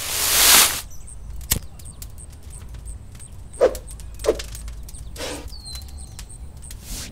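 Handling noises: a loud rustle in the first second, then scattered light clicks and two short knocks about halfway through, another soft rustle, and a brief high whistle near the end.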